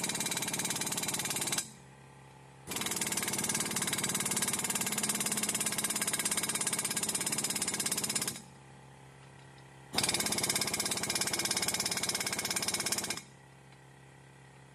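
Air impact wrench running on the nuts of a Hendrickson walking-beam truck suspension in three runs, a short one, a long one of about six seconds and a shorter one, with brief pauses as the socket is moved from nut to nut.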